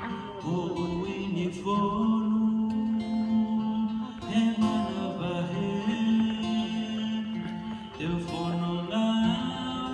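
A man singing a slow song into a microphone, with held notes that glide between pitches, accompanied by an acoustic guitar.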